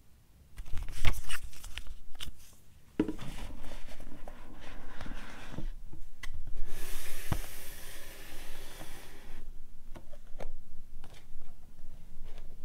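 Paper and cardboard being handled: an instruction booklet and a matte black cardboard box rubbed, slid and tapped by hands. Sharp taps and clicks come throughout, with a steady sliding rustle for a couple of seconds past the middle.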